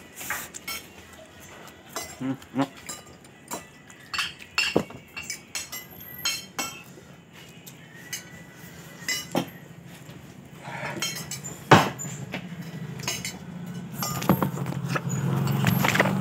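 Spoon and fork clinking and scraping on a plate during eating, in short irregular clicks with one sharper knock a little before the middle. A low steady hum builds in the second half.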